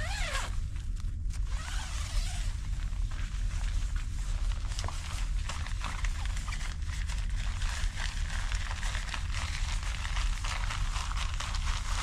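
Tent fabric rustling and crinkling as it is handled, over a steady low rumble.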